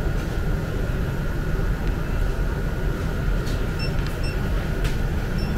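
Steady low background rumble with a faint constant whine. Short electronic beeps come twice about four seconds in and once more near the end.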